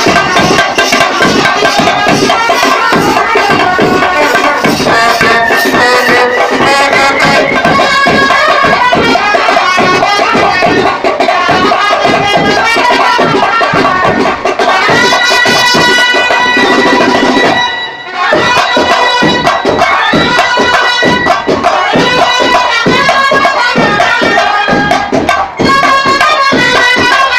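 A brass band of trumpets, euphoniums and sousaphones playing a loud, fast tune over a driving drum beat. About two-thirds through, the band holds a long note, breaks off for a moment and comes back in.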